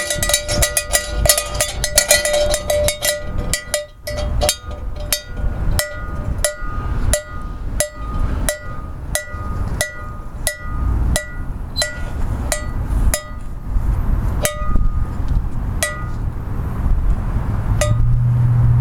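Cowbell being struck, rapidly at first, then settling into a steady beat of about two strikes a second, each strike ringing briefly, until it stops near the end.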